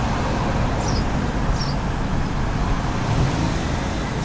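Steady road and engine rumble heard from inside a moving car's cabin.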